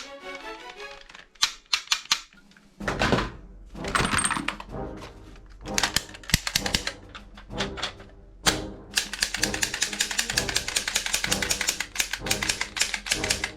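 Sharp mechanical clicks from a toy gun being handled, then from about nine seconds in a fast, even run of rapid clicking, over background music.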